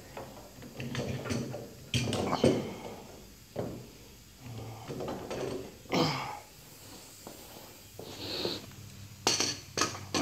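Knocks, clatter and handling noise as tools and parts are shifted about on a concrete garage floor, with a few sharper knocks near the end as the coilover is picked up.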